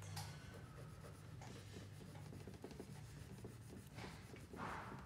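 Wax crayon scribbling on paper: faint, scratchy rubbing strokes, a little louder near the end.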